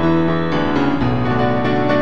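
Piano music: chords and melody notes ringing on, with new notes struck every half second or so.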